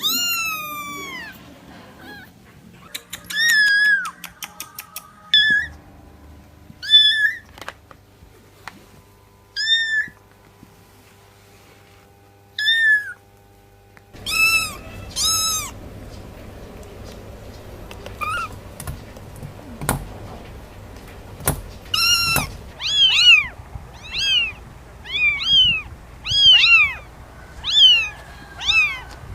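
Kittens meowing over and over: short, high-pitched cries that fall in pitch, spaced a few seconds apart at first. Near the end they come quickly, about one a second, with a couple of sharp knocks shortly before.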